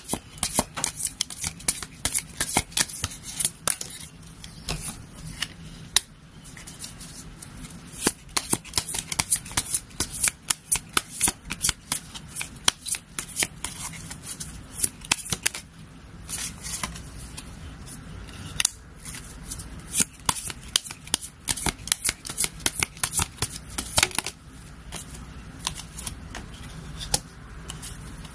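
A tarot deck being shuffled by hand: quick flurries of crisp card clicks and flicks with short lulls, and cards being laid down on the table.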